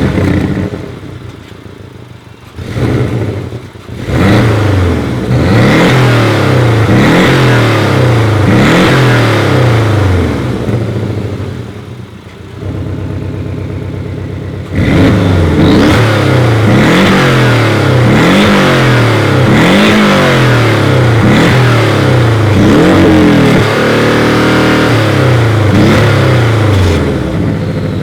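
Two sports-car engines heard one after the other, a Porsche 718 Boxster GTS's 2.5-litre turbo flat-four and a Lexus LC 500's 5.0-litre naturally aspirated V8. Each is revved again and again, the pitch climbing and dropping in repeated sweeps. The sound dips to a steady idle about twelve seconds in, before the second run of revs.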